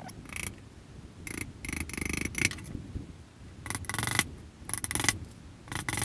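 Hammer driving spiral finishing nails through a half-inch plywood butt joint, in several short runs of quick taps with pauses between.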